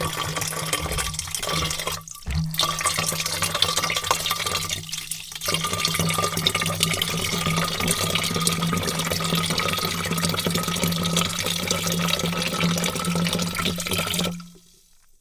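Heavy stream of water pouring into a large vat: a steady, dense splashing rush over a steady low hum. It breaks off briefly twice in the first few seconds and stops near the end.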